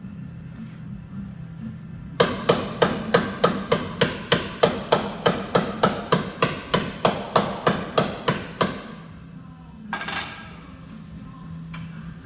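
A hammer striking metal over and over, about three blows a second for some six seconds, then one more blow a second later, during a frame-straightening pull on a collision-repair bench.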